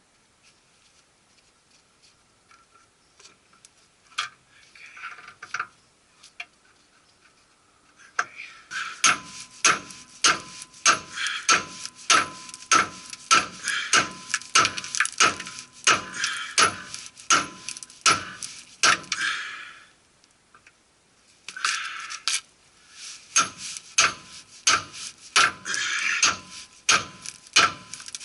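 Heavy hammer striking a pickle fork (tie rod end separator) again and again, about two blows a second, each with a metallic ring, driving the fork in between a tie rod end and the steering knuckle. A few light knocks come first, then a long run of blows, a pause of about two seconds, and another run.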